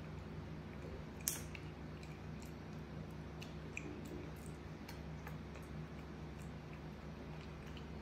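A monkey eating with its fingers: soft, wet chewing and small clicks as it picks rice off a plastic plate, with one sharper click about a second in, over a steady low hum.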